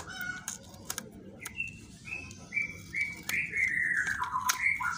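A bird singing: a run of short whistled notes, then a longer note that slides down in pitch about three seconds in. A few light clicks and taps sound alongside.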